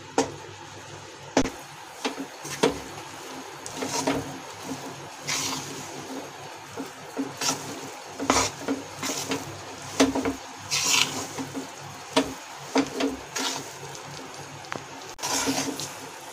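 A metal spoon stirs and scrapes gram flour and hot ghee around a metal kadhai, giving irregular clinks and knocks against the pan's sides and base. This is besan being mixed into hot ghee, the first step of roasting it for besan laddoos.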